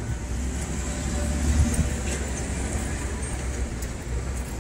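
Steady low rumble of a motor vehicle, with a faint steady high-pitched whine above it.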